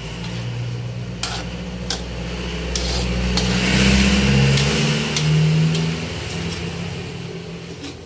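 A motor vehicle's engine passing by, swelling to its loudest about four seconds in and then fading, over a simmering wok of creamy stew and a few clicks of a metal spoon against the pan as it is stirred.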